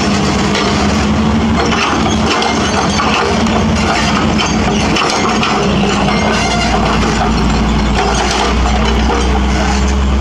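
Hydraulic breaker on a Hitachi Zaxis 210F excavator hammering concrete in rapid blows, over the excavator's diesel engine running steadily. A deeper low rumble builds in the second half.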